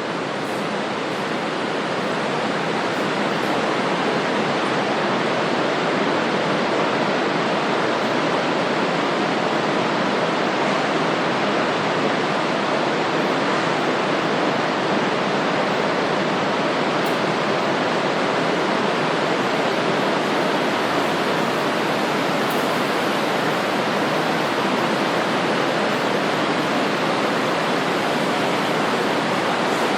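Swift river water rushing and churning, a steady dense wash of noise that swells in over the first few seconds and then holds even.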